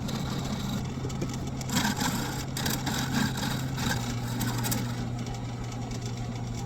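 Wood lathe running with a steady low motor hum, with the noisy hiss of a turning tool cutting a thin spinning dowel that swells and eases a few times.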